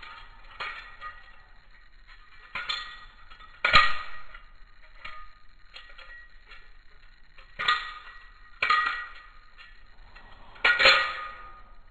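Blade Runners Systems balisong (butterfly knife) being flipped, heard in slow-motion playback: sharp metallic clacks of the handles and latch striking, each ringing on in a steady tone, about six strikes in all, the loudest about four seconds in.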